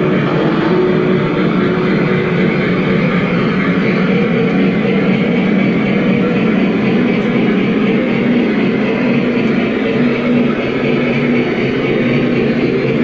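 Lionel VisionLine Big Boy O gauge model train running past, a steady rumble of the engine and its long string of freight cars rolling on the track.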